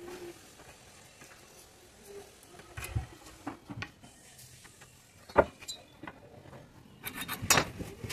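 Scattered wooden knocks and clicks as wooden strips and tools are handled on a plywood worktable, with one sharp knock about five seconds in and a quick run of knocks near the end.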